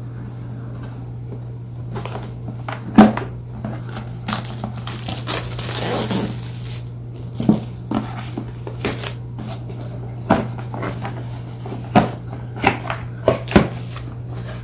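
Cardboard packaging being handled and opened by hand: rustling and sliding of the box and its sleeve, with sharp knocks and taps as it is set down and pulled apart, the loudest knock about three seconds in. A steady low hum sits underneath throughout.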